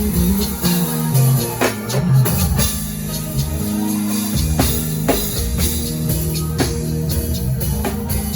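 Live worship band playing an instrumental passage: drum kit keeping a steady beat with bass, keyboard and electric guitar.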